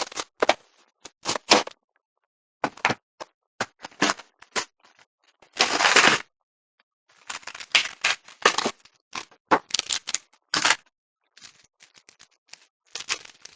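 Plastic blind-bag toy packaging being handled and opened by hand: a run of irregular sharp crinkles and clicks, with one longer crackling rip about six seconds in.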